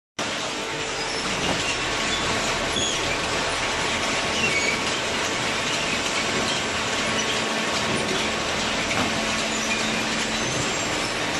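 Steady machinery noise with a faint hum underneath and scattered brief high squeaks throughout.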